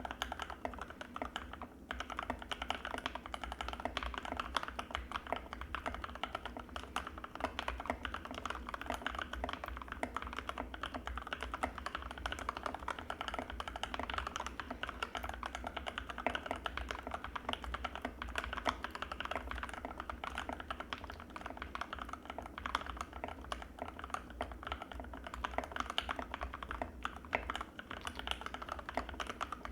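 Fast, continuous typing on an Anne Pro 2 mechanical keyboard with linear Gateron Red switches, a dense run of soft, muffled key clacks.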